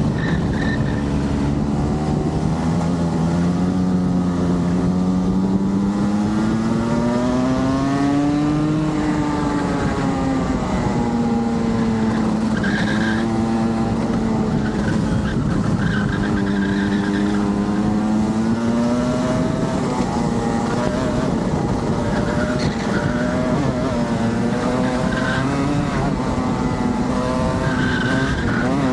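Rotax kart's 125cc single-cylinder two-stroke engine, heard from on board at racing pace. Its pitch climbs for several seconds, drops back and climbs again as the kart accelerates and lifts through the corners.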